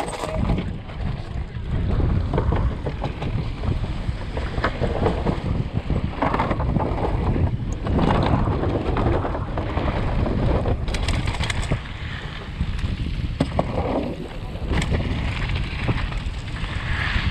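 Wind buffeting the action camera's microphone over the rumble of a Canyon Torque mountain bike's tyres rolling fast down a dirt flow trail and wooden boardwalk. Sharp knocks and rattles from the bike over bumps come several times.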